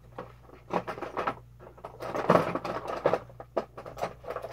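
Hands working on plastic toy robots and their packaging: irregular clicks, knocks and rustling.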